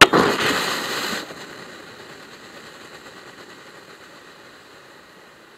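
A bullet strikes a pressurised fire extinguisher: a sharp crack, then a loud rushing hiss as it bursts and sprays out its powder. The hiss stays strong for about a second, then fades steadily over several seconds.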